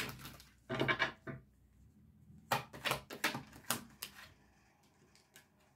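A deck of tarot cards being shuffled by hand: quick runs of flicking, slapping card sounds. There is a short run about a second in and a longer one from about two and a half to four seconds in, then a few faint taps.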